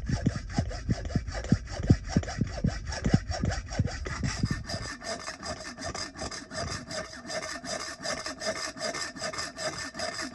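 Hacksaw cutting stainless steel stock clamped in a vise, in steady back-and-forth strokes. The strokes quicken and even out about halfway through, with a steady ringing tone from the metal.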